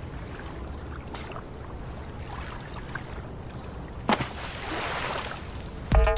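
Steady low rush of wind and water at a rocky shoreline, with a sharp knock about four seconds in and a swell of noise after it. Electronic music with a beat starts near the end.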